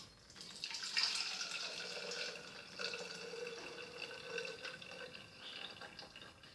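Hot herbal cough syrup being poured from a Thermomix jug through a small sieve, a steady trickling stream of liquid that fades toward the end.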